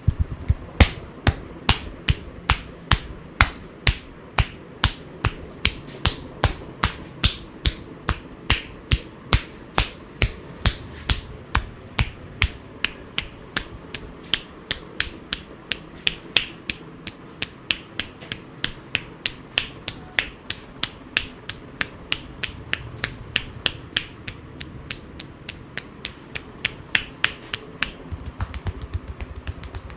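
Hand percussion in a barber's massage: sharp, even strikes of the hands at about three a second, in a steady beat.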